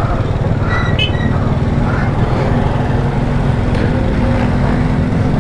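Motorcycle engine running as the bike rolls slowly along a street, under a steady low rumble of wind and road noise on the bike-mounted camera's microphone.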